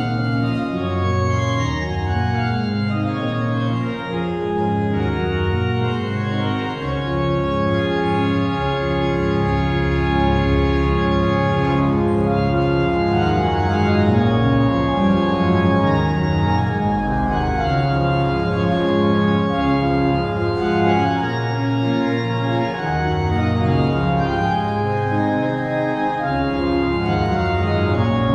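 Pipe organ playing an improvisation: sustained chords over a moving bass line, with the notes changing every second or so.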